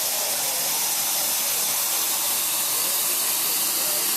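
Sink faucet left running full into a sink of soapy foam: a steady hiss of rushing water.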